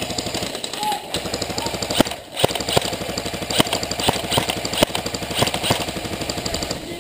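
Airsoft rifles firing full-auto: a fast, even mechanical clatter that runs almost without a break, with a few sharper cracks standing out through it.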